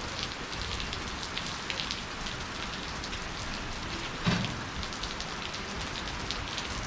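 Steady pouring rain, with individual drops splashing. A single thump sounds about four seconds in.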